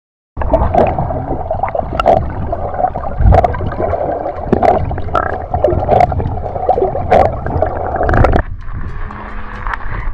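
Muffled underwater sound from a submerged camera in a river: a dense water rush with bubbling and many sharp clicks and knocks. About eight seconds in it gives way to quieter background music.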